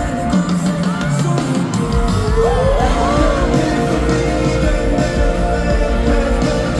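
Live rock-pop band music played loud through a concert PA, with a singing voice sliding in pitch about two seconds in.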